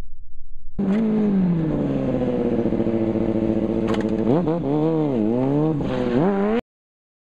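Kawasaki stunt motorcycle engine running, its revs dropping after a sudden start about a second in. Near the end the revs dip and rise several times, then the sound cuts off abruptly.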